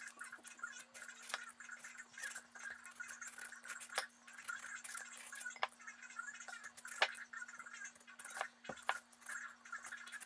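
Metal Y-peeler scraping strips of hard green skin off a whole watermelon: a run of irregular scrapes and sharp clicks over a faint steady hum.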